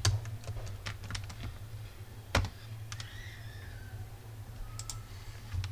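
Computer keyboard typing: scattered single keystrokes, with one louder click about two and a half seconds in, over a steady low hum.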